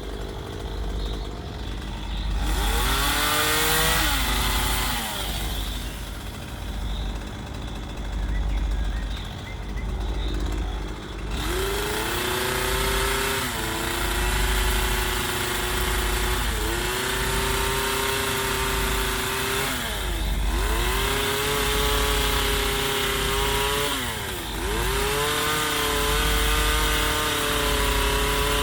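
Two-stroke chainsaw carving a wooden log. It idles, revs up and drops back once about three seconds in, then runs at high revs from about a third of the way through. The pitch sags briefly every few seconds as the chain bites into the wood.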